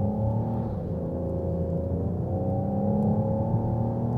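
Peugeot 308's 1.2 PureTech three-cylinder turbocharged petrol engine pulling under acceleration, heard from inside the cabin. The automatic gearbox shifts from first to second about half a second in, and the engine note then climbs steadily as revs rise again.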